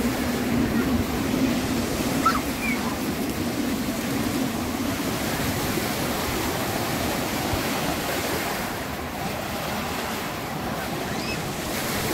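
Small sea waves washing onto the beach, with wind buffeting the microphone.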